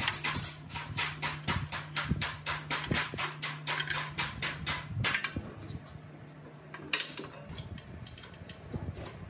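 Rapid, even metallic clicking, about five clicks a second, over a low steady hum. The clicking stops about five seconds in, and a single sharp click comes near seven seconds, followed by faint metal handling sounds.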